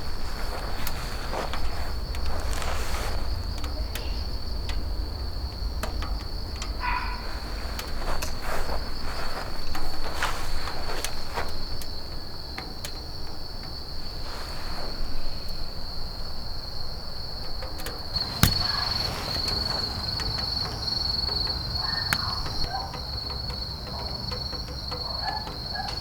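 Crickets trilling, a steady high note with no pause, over a low rumble, scattered crackles and knocks, and one sharp knock about eighteen seconds in.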